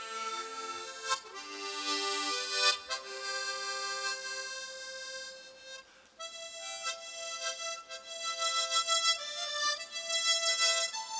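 Four harmonicas played together by one player, held stacked in both hands, sounding a slow melody over chords. The notes are held and smooth, with a short break about six seconds in, then a louder, pulsing accompaniment near the end.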